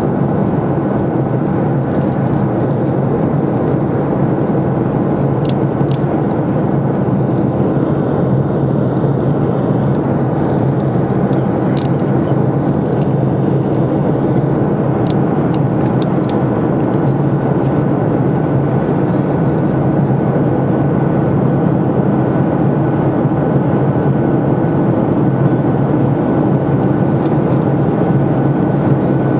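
Steady cabin noise inside a Boeing 737-500 descending on approach: its CFM56-3 turbofan engines and the airflow past the fuselage make an even, unbroken hum, with a faint steady whine above it.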